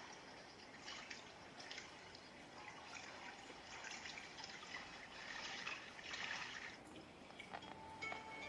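Faint trickling and dripping water, with a few soft chime-like tones starting near the end.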